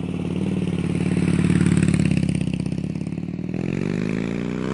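Motorcycle engine running with an even beat, growing louder about two seconds in, then rising steadily in pitch near the end as it revs up.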